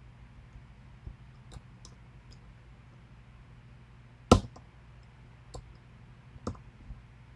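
A pin-tumbler challenge lock being picked: scattered light metallic clicks from the pick and pins. One sharp, much louder click comes a little past halfway, over a faint steady low hum.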